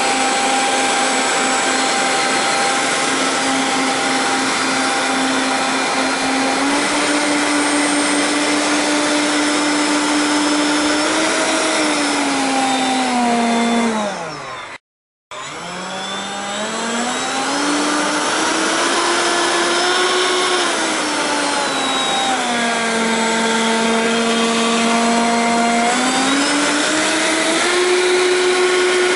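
Four 70 mm eleven-blade electric ducted fans of an RC airliner whining at high power, with the pitch stepping up and down as the throttle changes. About halfway through they wind down and the sound cuts out for a moment. They then spool back up, ease off again, and climb to a high steady whine near the end.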